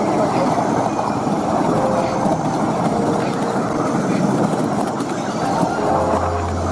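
A 7¼-inch-gauge miniature railway train running along the track, heard from on board: steady running noise of the wheels on the rails. A low steady hum joins in near the end.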